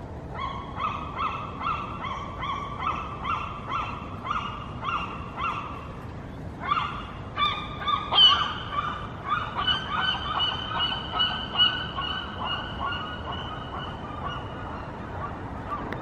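Gulls calling: a long series of repeated yelping calls, about two a second, with the loudest call a little past the middle.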